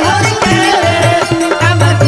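Instrumental Indian folk-devotional music: a bass line pulsing in a steady beat under percussion and a wavering lead melody.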